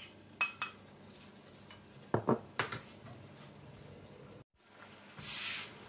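Light kitchen clinks and knocks: a few small taps of a spoon on the frying pan, and a heavier knock about two seconds in as a small ceramic ramekin is set down on the worktop. A short soft hiss follows near the end.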